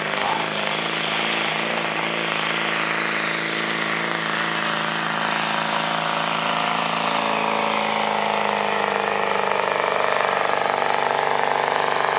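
Diesel engine of a 1990s Ford pickup running at full throttle while dragging a weight-transfer pulling sled, a loud steady drone. Its pitch slowly sags over the middle of the pull as the sled's load builds and drags the engine down.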